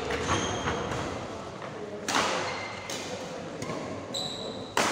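Badminton rally: rackets hitting the shuttlecock with sharp cracks about a second apart, the loudest about two seconds in and near the end, with short high squeaks of shoes on the court floor and hall chatter behind.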